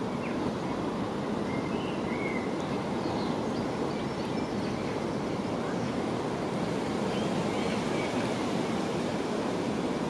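Steady rushing outdoor background noise, with a few faint high chirps about two seconds in and again about seven seconds in.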